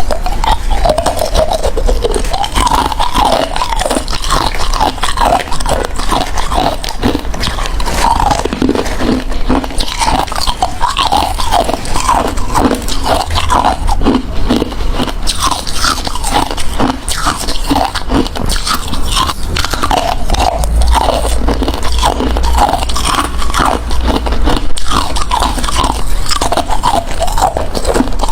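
Ice being bitten and chewed close to the microphone, a steady run of crisp crunches one after another.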